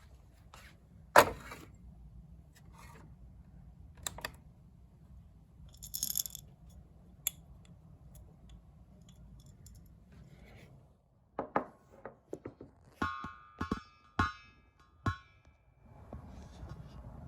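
Scattered clicks and knocks of small hard objects being handled, then a quick run of clinks with brief ringing tones over a low steady hum.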